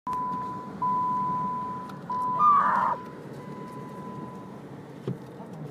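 A car's electronic warning chime sounding as a steady single-pitched tone that starts three times, each fading slowly. A short louder burst comes about two and a half seconds in, then the low steady noise of the car's cabin on the move with a single knock near the end.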